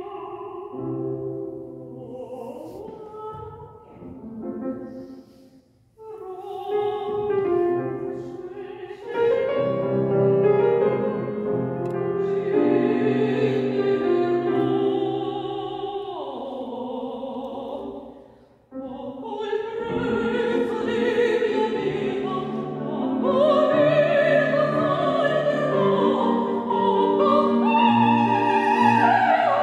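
Soprano singing an operatic piece with piano accompaniment, with vibrato on the held high notes. The sound drops away briefly twice, about six seconds in and again a little past halfway.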